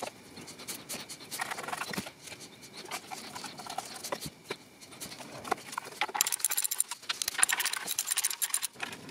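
Light metal clicks and scraping as rusty bolts are fitted by hand into the exhaust manifold's heat shield, with a denser run of quick ticks in the last few seconds.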